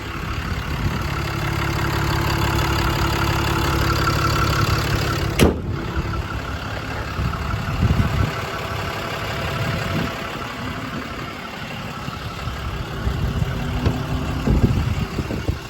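A Ram 5500's 6.7 L Cummins turbodiesel idling steadily, with one sharp click about five seconds in and a few softer knocks later.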